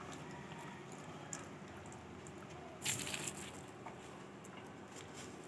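Dachshund gnawing on a chew stick: faint chewing with small scattered clicks, and a louder burst about three seconds in.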